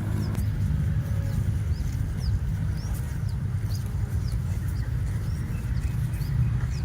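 Small birds chirping repeatedly, short quick notes about one or two a second, over a steady low rumble.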